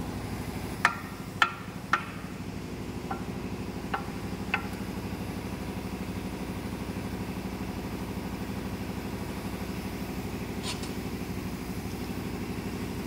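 Sharp metal clanks: three loud ones in the first two seconds, then a few lighter knocks and one ringing clink near the end. This is a heavy side cover plate being worked free of a bare Cummins KT1150 engine block. Under it all is a steady mechanical drone of machinery running.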